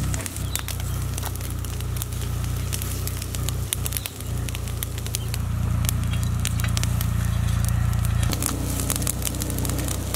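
Open charcoal fire crackling and popping under a grill rack of chickens, with a steady low rumble underneath that swells for a few seconds past the middle.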